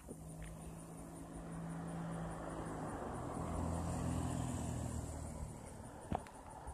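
A car driving past on the street, its engine and tyre noise building to a peak about four seconds in and then fading away. A single sharp click comes near the end.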